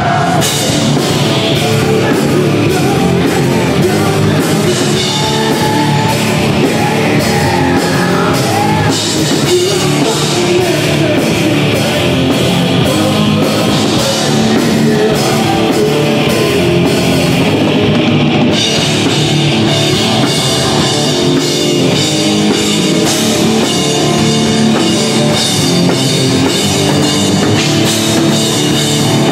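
Live alternative rock band playing loudly: electric guitars, bass guitar and a drum kit with steady cymbal strokes.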